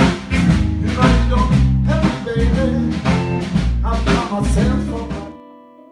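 Live blues band playing with a steady beat: a harmonica played into the microphone over guitar, bass and drums. The music cuts off suddenly near the end, leaving a few faint ringing notes.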